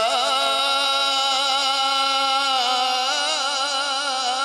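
A man's voice reciting the Quran in the melodic tajwid style, drawing out long held notes with a wavering vibrato. The pitch moves to a new note about two-thirds of the way through, without a pause.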